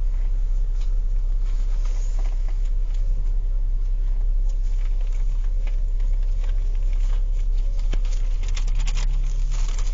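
Car engine idling as a steady low rumble, with faint scattered clicks and taps over it.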